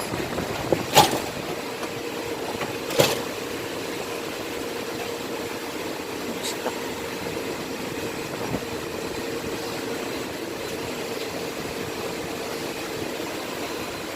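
Sharp metallic clicks of hand tools working on engine parts, two loud ones about a second and three seconds in and a fainter one later, over a steady machine hum.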